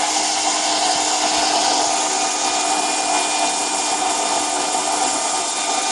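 Handheld hairdryer running steadily, a continuous rush of air with a faint motor whine, blowing hot air onto a phone's back glass to soften the adhesive beneath it.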